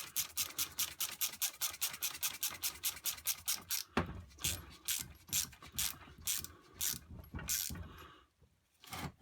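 Ratchet wrench clicking while tightening a bolt, fast and even at about five or six clicks a second, then slower, louder, separate strokes from about four seconds in, stopping shortly before the end.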